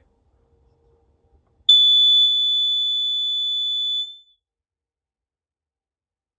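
Nortron AC8W smoke alarm's piezo horn sounding on test: one steady, very high-pitched tone lasting about two and a half seconds, starting about a second and a half in and cutting off sharply.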